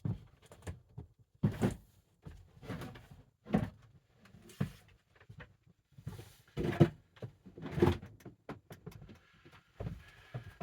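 Irregular rustling and bumps of a stitched basketball jersey being handled and pulled on, with a few louder knocks.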